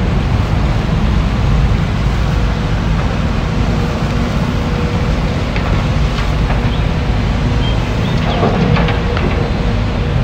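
Diesel engine of a tracked hydraulic excavator running steadily, with a few short scrapes and knocks of rock around six seconds in and again near the end.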